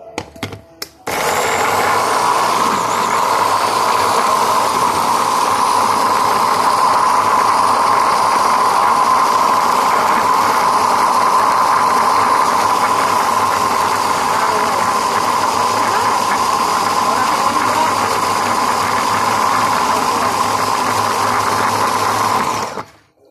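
Electric food processor running steadily as it grinds onions, peppers and herbs into a seasoning paste. It switches on about a second in, after a few clicks, and cuts off just before the end.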